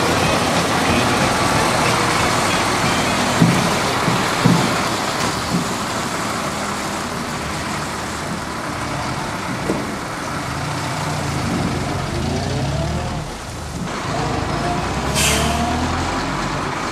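Diesel tractor unit hauling an Aldi semi-trailer, its engine running as the rig manoeuvres and pulls away, the engine note rising in the second half. A short hiss of air from the air brakes about fifteen seconds in.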